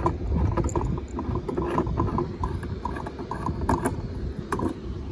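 Small metal lamp parts clicking and rattling as the finial is unscrewed from a lamp's wire harp and the shade is handled, over a low rumble of handling noise.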